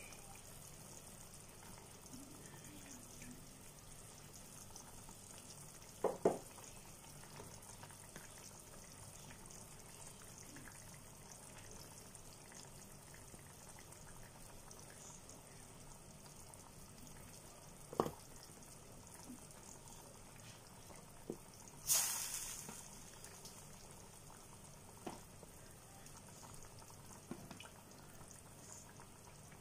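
Chunks of fish head dropped one at a time into a steel pot of simmering curry, giving several short, soft plops and splashes, the longest about two-thirds of the way through, over a faint steady bubbling of the gravy.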